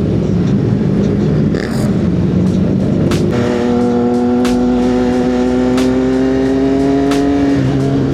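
CF Moto 675SS inline-three engine running under way: a rough, uneven low sound for about three seconds, then a strong steady engine note that sags slowly and steps down in pitch near the end. Scattered sharp ticks sound over it.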